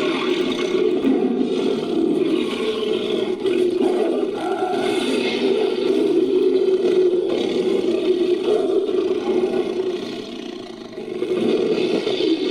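Layered creature roar sound effect, mixed from animal and monster roars: a long, rough, continuous roar that dies down briefly near the end before another one swells in.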